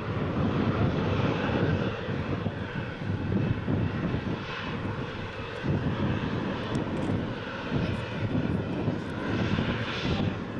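Boeing 737 Next Generation airliner's turbofan jet engines running at high power as the jet rolls along the runway: a steady deep rumble with a rushing hiss above it.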